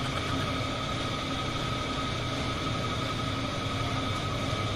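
Washing machine running nearby: a steady hum and whir with a faint high whine, unchanging throughout.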